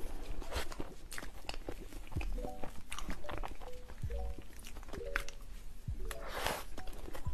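Close-up eating sounds of a mousse cake being spooned and eaten: spoon clicks, wet mouth smacks and chewing, with a few brief pitched sounds and a short breathy rush near the end.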